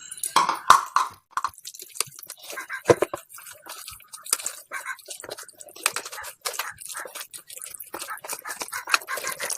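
Wet squelching and squishing of hands rubbing a yogurt and spice marinade into a whole raw chicken, in irregular strokes with small clicks and slaps.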